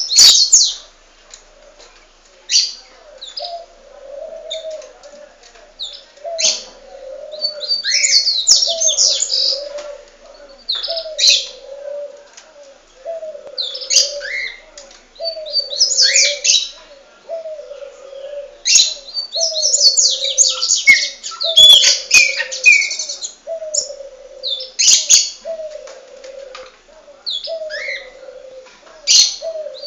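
Pet birds chirping in bouts of high twittering, over a low call repeated steadily about every second and a half.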